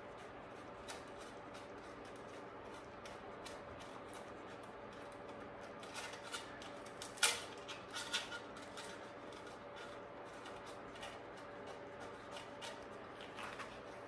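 Faint clicking and light scraping of a bicycle cable and its housing sleeve being worked through the frame's internal routing. A few louder clicks come about seven to eight seconds in, over a faint steady hum.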